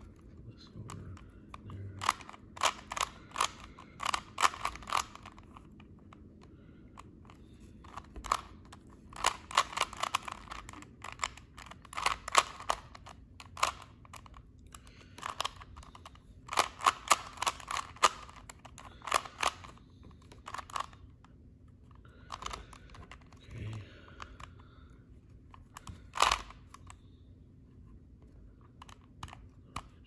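Plastic Rubik's Cube layers being twisted by hand, clacking in quick runs of several turns with short pauses between. A single louder clack comes late on.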